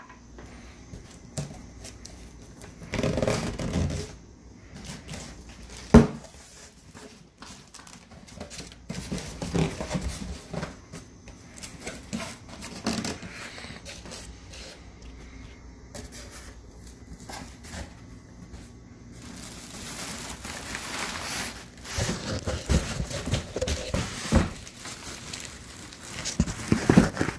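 A cardboard-boxed PC case being handled and pulled from its packaging: scraping, rustling and bumping, with one sharp knock about six seconds in and a longer stretch of rustling near the end.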